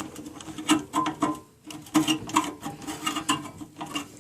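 Irregular clicks, taps and rubbing from a furnace control board and its Molex plug being handled, over a steady low hum.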